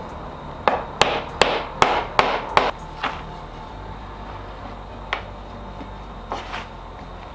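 A hammer strikes about seven quick blows in under three seconds, tapping corner braces into the corners of a wooden canvas stretcher frame to tighten the stretched material. A couple of lighter knocks follow later.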